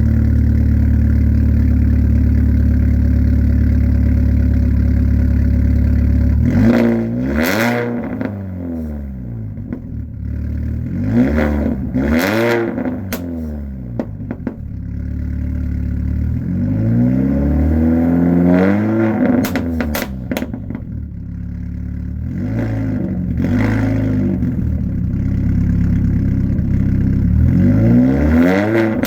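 Car engine running through a new 3-inch stainless steel exhaust with no muffler: it idles steadily for about six seconds, then is revved repeatedly, each rev rising and falling back toward idle.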